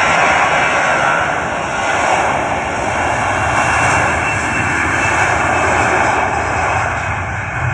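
Airbus A320-family airliner's jet engines running loud and steady as it rolls along the runway: a broad, even rushing noise.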